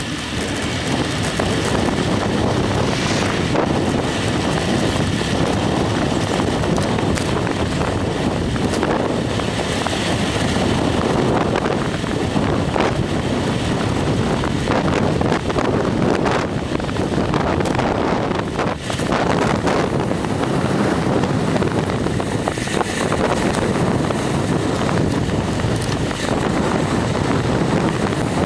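Steady wind buffeting the microphone of a handheld camera moving along a road, with a few brief knocks from handling.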